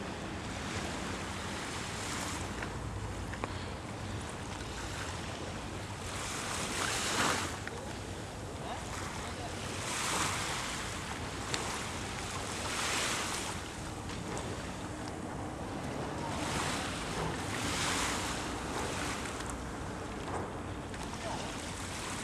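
Small waves washing onto a sandy beach, a hiss that swells and fades every few seconds, over a steady low rumble of wind on the microphone.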